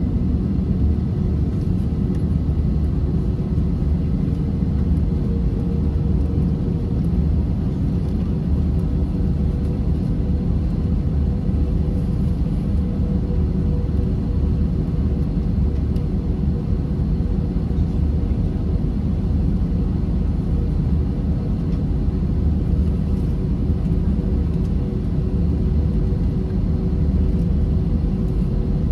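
Airbus A320-232's two IAE V2500 turbofans running at idle while the jet taxis, heard inside the cabin as a steady low rumble with a faint even hum on top.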